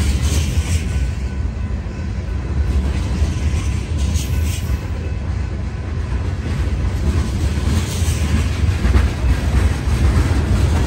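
Freight train of tank cars rolling past close by: a steady rumble of steel wheels on rail. Brief higher-pitched wheel sounds rise above it about four and eight seconds in.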